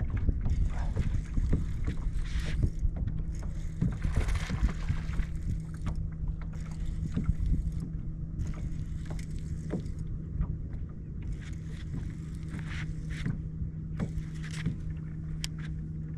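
A hooked largemouth bass being fought beside a fishing boat: water splashing and scattered knocks against the hull, heaviest in the first few seconds, over a steady low hum.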